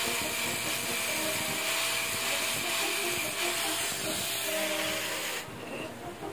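A loud, steady hiss that cuts off suddenly about five seconds in, over faint background music.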